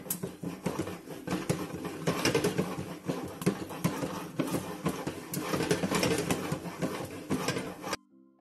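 Popcorn kernels rattling and sizzling in sugar syrup and oil inside a covered steel pot being shaken back and forth over the burner, with a few kernels starting to pop. It cuts off suddenly near the end and soft music follows.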